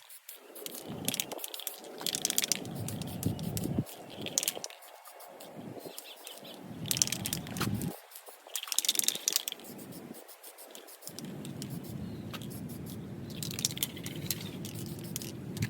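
Aerosol spray paint can hissing in about five short bursts, spaced a few seconds apart, as Rust-Oleum 2-in-1 paint is sprayed onto steel rock sliders for a rust touch-up.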